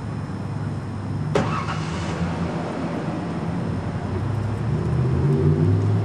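A car engine running nearby: a steady low hum that grows louder near the end. A single sharp click comes about a second and a half in.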